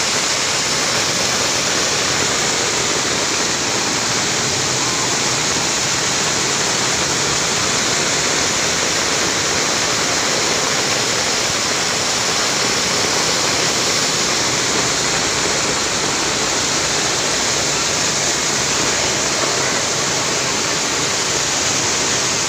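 Heavy rain falling and muddy floodwater running across a road: a loud, steady, unbroken rush of water noise.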